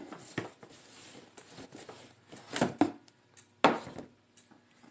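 Sneakers being handled in and lifted out of a cardboard shoebox: scattered rustling and scraping, with two sharper knocks about two and a half and three and a half seconds in.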